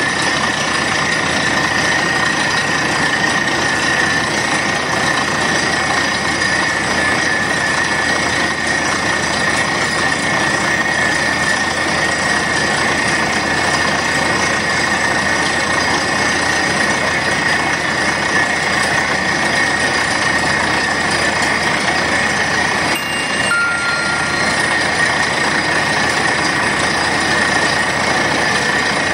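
Truck-mounted borewell drilling rig running steadily as it drills, with a steady high-pitched whine over the loud, even machine noise.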